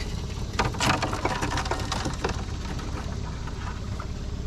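Small boat motor idling steadily, with a few light knocks and splashes from the crab line and net over it.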